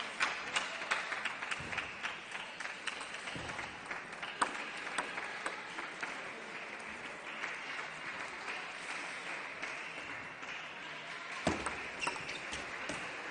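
Scattered applause and clapping in a sports hall, loudest at the start and dying down, with sharp clicks of a table tennis ball. Near the end a rally starts and the ball is struck and bounces on the table several times.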